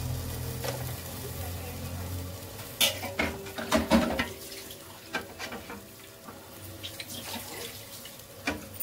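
Raw mutton pieces go into hot oil and browned onions in an aluminium pressure cooker. There is a burst of clatter and sizzling about three to four seconds in, then lighter frying sizzle with scattered clicks from the wooden spoon and pot.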